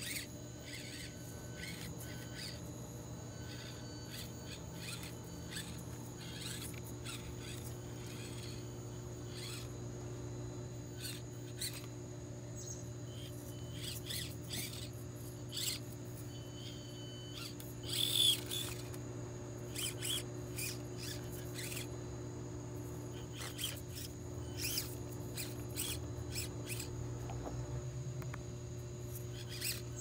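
Axial SCX24 1/24-scale RC crawler climbing over rocks and logs: its small electric motor, gears and steering servo whine in short bursts, with many light clicks and scrapes from its tyres and chassis on stone, over a steady low hum. The busiest, loudest moment comes a little past halfway.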